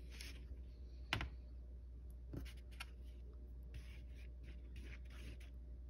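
Spoon stirring thick barbecue sauce on a foam plate: soft scraping and smearing with a few light clicks, one sharper tap about a second in, over a low steady hum.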